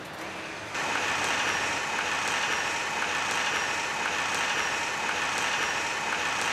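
Audi A8 rear electronic parking brake caliper motors whining steadily as they drive the pistons closed onto newly fitted brake pads, with a faint tick about once a second. The whine starts about a second in.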